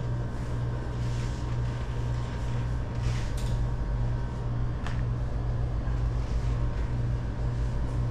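Steady low mechanical hum with a faint higher whine over it, and a few light clicks about three and five seconds in.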